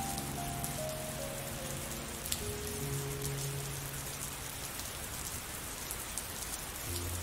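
Steady rain falling, with scattered ticks of single drops, under soft music: a slow melody of held single notes stepping downward over a low held note.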